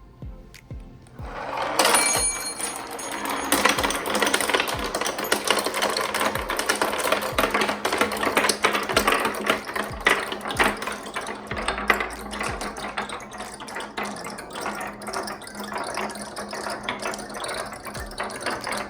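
A pack of marbles let go together about two seconds in, then rolling and clattering down a marble-run track in a dense, unbroken stream of clicks and rattles.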